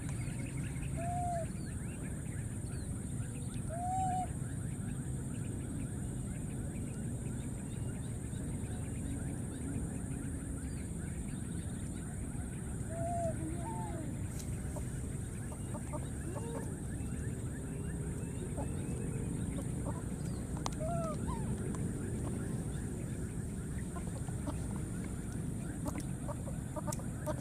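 A few short, honk-like animal calls, each rising and falling in pitch, scattered singly through the stretch, over a steady low background rumble.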